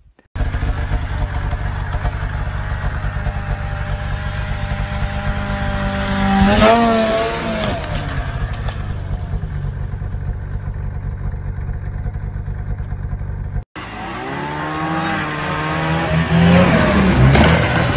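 Snowmobile engine running steadily, with one rise in revs around the middle. It cuts off suddenly about three-quarters through, and another snowmobile engine then revs up and down repeatedly.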